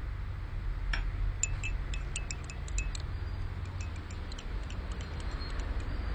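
A run of light, high tinkling clinks, thickest in the first half and thinning out toward the end, over a steady low hum.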